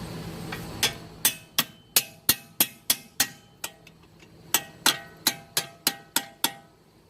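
Hammer blows on steel, sharp ringing clanks about three a second, in two runs with a short pause between, driving the strut's mounting bolts home.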